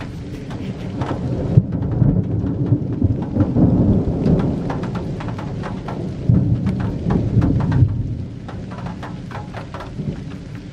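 Rolling thunder rumbling deep and low in two long swells, the first building from about a second and a half in and the second around six seconds in, before dying away. Scattered light ticks run throughout.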